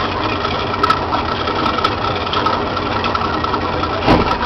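Boat motor running steadily with a constant hum, and a brief thud about four seconds in.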